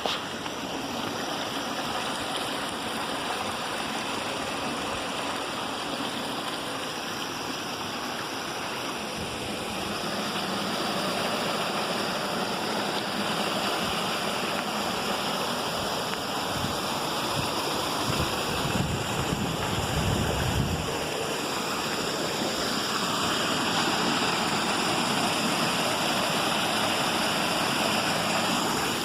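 Cascading water rushing steadily, a continuous even noise. Wind on the microphone adds a low rumble about two-thirds of the way through.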